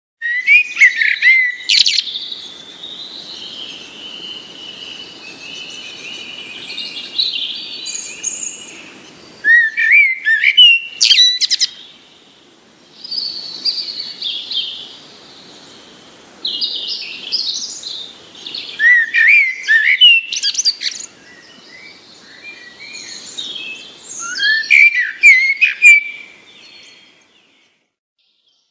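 Birds singing: clusters of loud chirps and trills every few seconds over quieter, continuous warbling, stopping shortly before the end.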